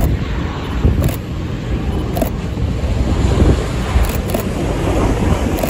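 Sukhoi Superjet 100's twin PowerJet SaM146 turbofans on final approach: a steady jet rumble that swells a little as the airliner comes closer, with a few short crackles.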